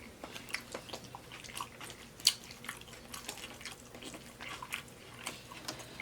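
Chewing and wet mouth smacking while eating taco salad: irregular soft clicks, with one sharper click a little over two seconds in.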